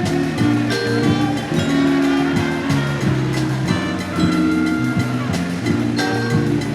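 Music with a steady beat: held notes over regular percussive strokes.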